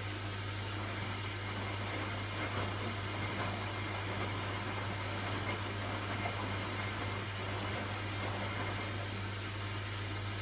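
Hoover washing machine running, a steady low hum under an even whooshing noise.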